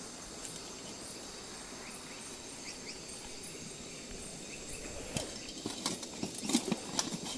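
Night insects trilling steadily, high and even. From about five seconds in, scattered knocks and clatter as stones and a basin are handled while hunting crabs.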